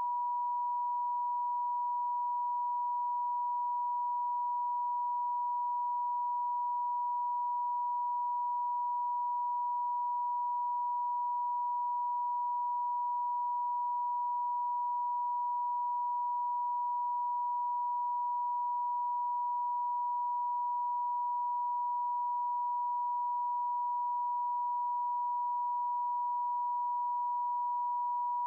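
Pure sine tone, computer-generated, held steady at one high pitch without any change: a Rife frequency tone.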